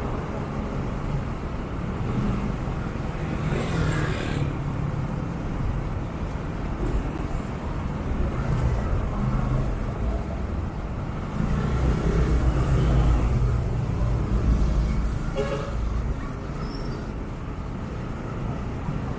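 Motorcycle engine running at low speed in slow, heavy city traffic, with the drone of surrounding car and bus engines. The rumble grows louder for a few seconds past the middle, and there are two brief hisses, about four seconds in and again near the end.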